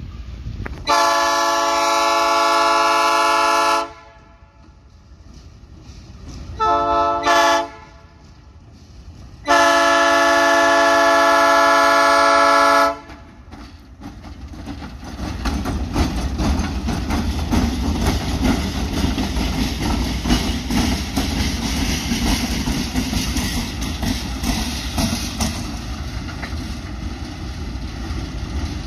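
Air horn of a pair of GE U20C1/UB20C diesel-electric locomotives sounding a chord: a long blast about a second in, a short double toot, then a second long blast. After that the diesel engines and rolling wheels rumble loudly as the locomotives come close and pass.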